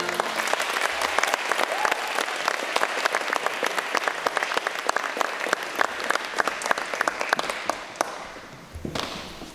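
A small audience clapping, dense at first and thinning out until it dies away near the end.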